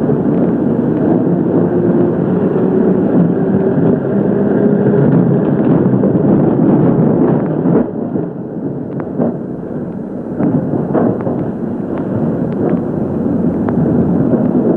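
Street traffic: car engines and tyres making a loud, steady, dense noise as taxis drive past, easing a little about halfway through, with a few short sharp knocks in the second half.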